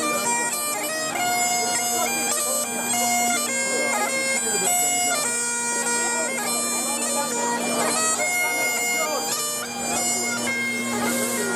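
Bagpipes playing a tune: the chanter melody steps between held notes over one steady drone. People are talking faintly underneath.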